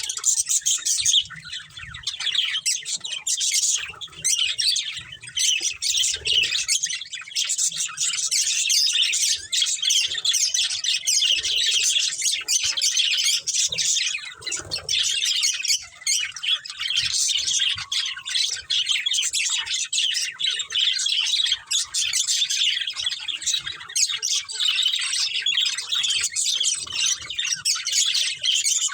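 Budgerigars chirping and chattering without a break: a dense stream of quick, high-pitched chirps and warbles with occasional squawks.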